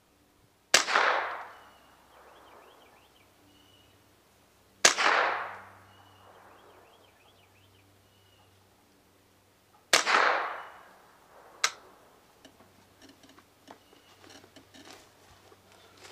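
Three suppressed shots from a Ruger 10/22 .22LR rifle fitted with a YHM Mite-22 suppressor, about five seconds apart, each a sharp crack trailing off over about a second. The standard-velocity ammunition is supersonic, so each shot keeps its crack despite the suppressor. A lighter single sharp click follows, then faint small clicks near the end.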